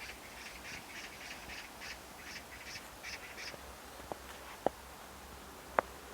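A bird's harsh, rapid call notes repeat about three times a second and stop about three and a half seconds in. A few short, sharp ticks follow, the loudest near the end.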